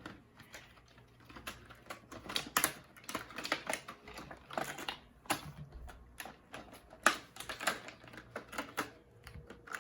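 Small plastic glitter containers being handled, opened and tapped: a run of irregular sharp clicks and taps, a couple of them louder.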